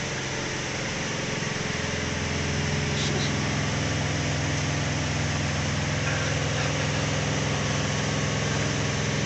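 Steady engine-like drone of a train, a low hum with a constant hiss, growing a little stronger about two seconds in.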